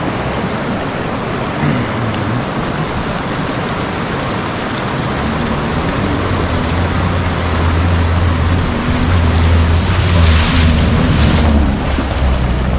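A car driving through a fast-flowing mountain stream crossing: rushing, splashing water over the engine running under load, with a louder burst of splashing about ten seconds in.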